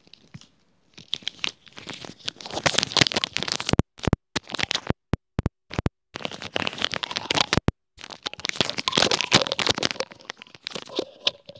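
Clear plastic being crinkled and crumpled close to the microphone: dense crackling, broken in the middle by a few separate sharp clicks.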